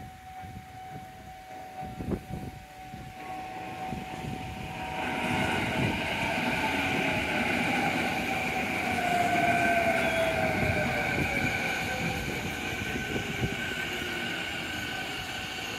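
Sanyo 6000-series electric train pulling into a station and braking, the wheels rumbling on the rails while the traction motors whine in a tone that falls steadily in pitch as the train slows. It grows louder about five seconds in. A steady ringing from the level-crossing bell is heard at the start.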